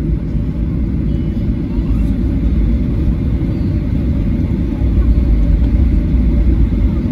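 Cabin noise of a Boeing 737-800 rolling along the runway after landing: a steady low rumble of wheels and engines, growing a little louder about five seconds in.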